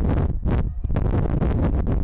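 Wind buffeting the microphone: a loud, uneven low rumble that dips briefly partway through.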